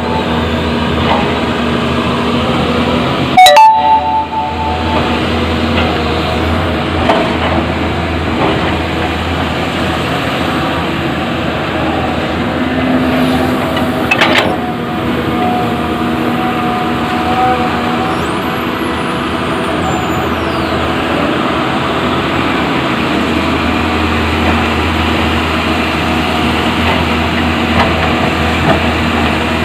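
Caterpillar 320D2 hydraulic excavator running steadily while working, with two loud sharp clanks, one a few seconds in with a brief metallic ring and another about halfway through.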